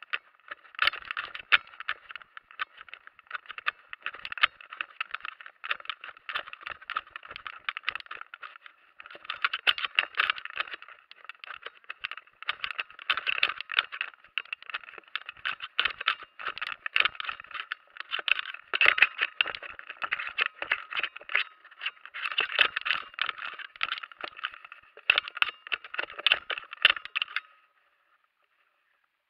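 Dense, irregular rattling and scraping close to a body-mounted action camera as a paraglider pilot moves about and runs over frosty grass. It cuts off suddenly near the end.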